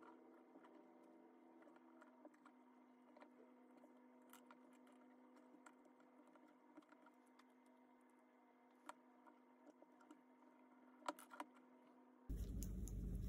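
Faint steady hum with a few small clicks and taps as the tiny metal parts of a miniature RC car chassis are handled in gloved fingers. About a second before the end, a much louder low noise cuts in suddenly.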